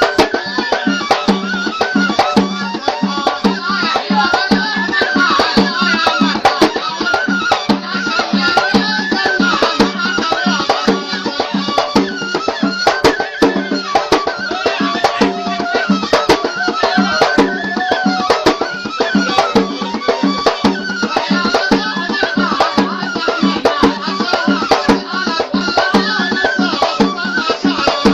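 Yemeni Yafa'i folk music: a reed pipe (ghasba) plays a wavering melody in repeated arching phrases over a steady low drone, while a drum beats a steady rhythm.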